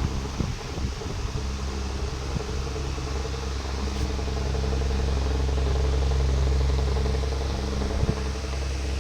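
An engine running steadily with a low hum, growing louder about halfway through and easing off again near the end, with a few faint clicks.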